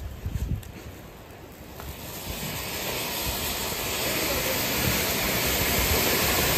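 Ground firework fountains, several tubes set in a cardboard box, spraying sparks with a steady hiss. The hiss starts about two seconds in, grows louder, then holds.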